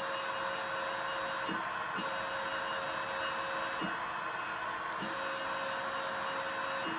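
Stepper motors driven by stepper drivers, running in three short stretches of about one and a half to two seconds each, with brief pauses between. Each stretch is a steady whine with a click as the motors start and stop.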